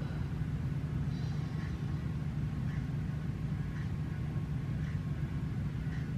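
Steady low hum of background noise, with a faint tick about once a second.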